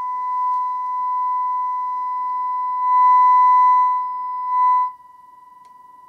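Steady 1 kHz sine test tone from a signal oscillator, played through a bookshelf speaker by a small 9 V BC337/BC327 push-pull transistor amplifier. Its loudness swells and dips, drops low about five seconds in, and comes back up at the very end.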